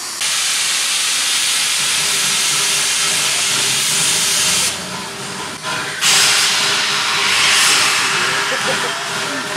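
Arcade & Attica No. 18, an Alco 2-8-0 Consolidation steam locomotive, hissing loudly with escaping steam as it crosses the road. The hiss starts abruptly, drops away briefly about halfway through, then returns suddenly.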